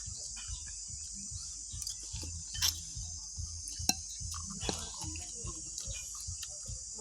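Steady chirring of crickets, with a few sharp clicks and light knocks over it, the loudest about two and a half and four seconds in.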